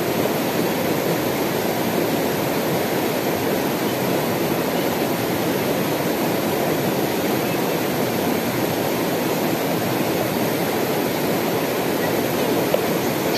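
Mountain river rushing over rocks and through small rapids: a steady, even rush of water.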